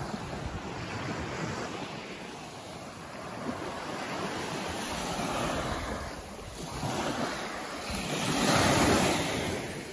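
Small sea waves washing onto a sandy shore, mixed with wind on the microphone. The sound swells and fades a few times and is loudest near the end.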